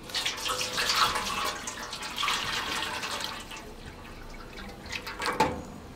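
Just-boiled water poured from a saucepan into a metal baking tray in the oven for a water bath, splashing and sloshing for about three seconds before thinning out. A short knock comes near the end.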